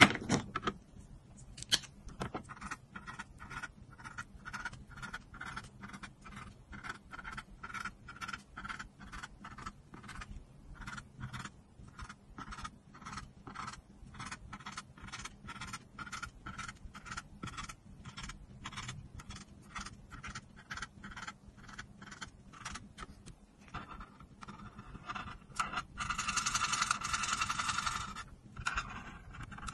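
Felt-tip marker tips scratching on paper: short dabbing strokes at about three a second as small spots are coloured in, then from about 24 seconds in a louder, continuous scribbling as a larger area is filled. Two sharp clicks come near the start.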